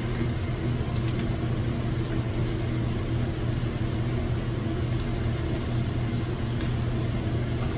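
Steady low mechanical hum with a strong deep tone and a fainter higher one, even and unchanging throughout.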